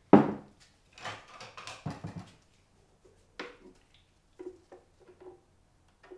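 A sharp knock as a plastic blender jug is lifted off its base, then soft handling noises and a few faint wet plops as thick blended coconut yogurt pours from the jug into a bowl.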